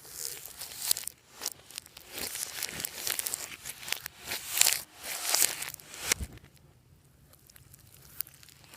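Fluffy slime being worked and mixed by hand, making irregular crackling, crinkling and tearing noises. The noises die down about six seconds in.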